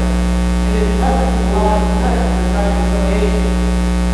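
Loud, steady electrical mains hum in the recording, with faint distant voices underneath.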